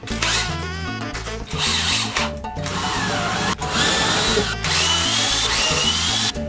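Cordless drill boring holes through stacked plywood, running with a few brief breaks, with background music playing under it.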